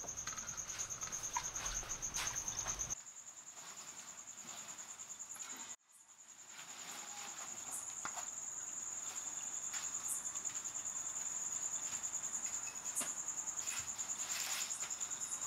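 Crickets chirping: a steady, high, fast-pulsing trill that cuts out briefly about six seconds in and then fades back. A few faint taps and rustles sound over it.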